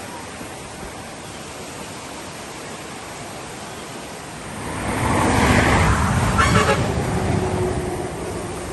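Steady rush of a flooded river, then about four and a half seconds in a vehicle passes close by, its road noise and rumble swelling and fading over about three seconds.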